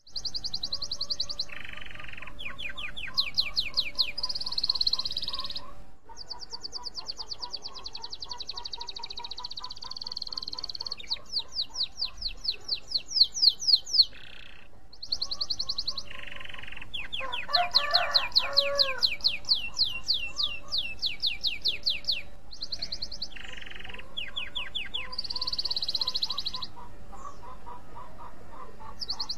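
Domestic canary singing a long, continuous song of fast high trills and rattling runs of repeated notes, breaking off briefly twice. A lower, warbling call joins for a moment just past the middle.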